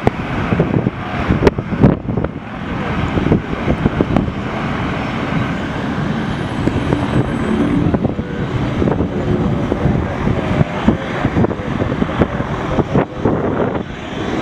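Steady jet rumble from the four Pratt & Whitney F117 turbofans of a Boeing C-17 Globemaster III banking away after a low pass, with sudden gusts of wind buffeting the microphone.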